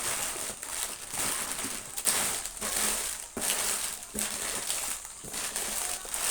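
Chocolate packaging being handled and opened, crinkling and rustling in irregular bursts.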